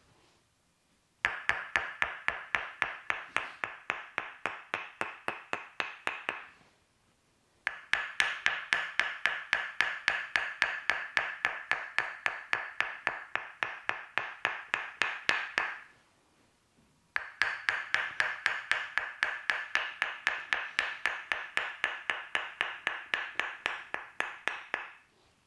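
Tok Sen wooden mallet striking a wooden stick in rapid, even taps, about five a second, each a bright ringing wooden knock. The taps come in three runs of several seconds, with short pauses between them.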